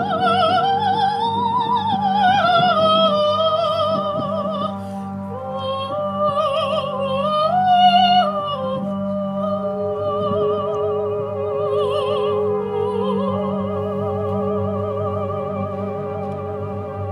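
Operatic soprano singing slow, long-held notes with wide vibrato over a steady low drone. The voice rises to its loudest note about eight seconds in, then settles lower.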